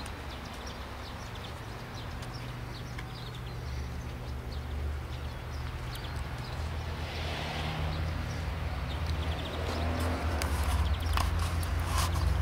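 Honda Accord 2.2 i-CTDi four-cylinder turbodiesel idling steadily, growing louder towards the end. Light clicks and ticks are scattered over the hum.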